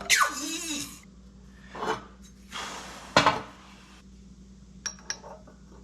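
Metal parts and tools clattering and scraping, with a sharp metallic knock a little after three seconds in and two light clicks near the end.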